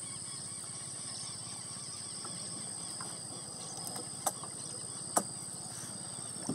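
Two sharp knocks about four and five seconds in, a fishing net with its floats and weights being hauled in over the side of a wooden canoe, over a steady high-pitched hum and low outdoor background.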